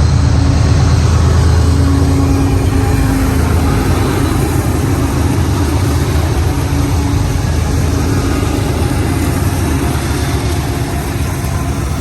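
Diesel locomotive engines running with a steady low drone, fading a little toward the end.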